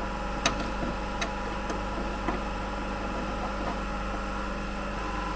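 A few light clicks and taps, the strongest about half a second in, as a metal exhaust hanger is fitted onto its mounting bracket. A steady background hum runs under them.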